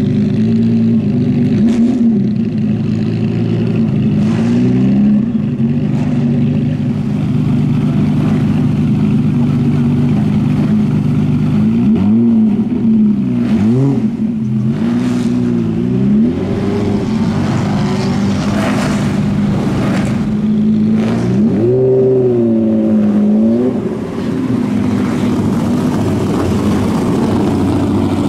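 Ferrari F50's V12 idling, with several short throttle blips that rise and fall in pitch. A few come close together around the middle, and another follows a little later.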